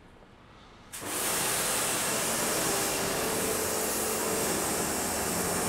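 Water jet spraying onto a car wheel and tyre, rinsing off the wheel cleaner. It starts suddenly about a second in and then runs as a steady hiss.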